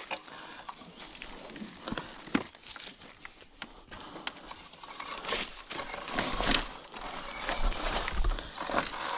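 Electric dirt bike tyres rolling slowly over dry leaf litter and twigs, crackling and crunching with scattered knocks and rattles from the bike. It grows louder in the second half.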